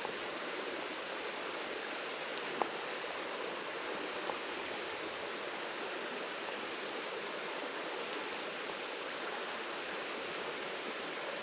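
Steady rush of flowing creek water, with a couple of faint clicks about two and a half and four seconds in.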